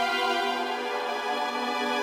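Background music of slow, held chords.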